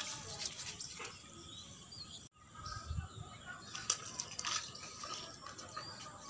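Outdoor background with small birds chirping and scattered clicks and scuffs; the sound drops out for a moment about two seconds in.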